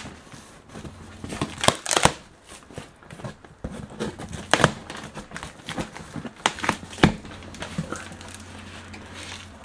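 Packing tape being pulled off the seam of a large cardboard box and the cardboard flaps being worked open: an irregular run of sharp rips, cracks and cardboard scrapes, some much louder than others.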